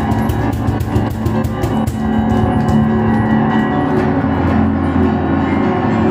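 Live piano and cajon music: quick, dense strikes over the first couple of seconds, then held piano chords ringing under lighter percussion.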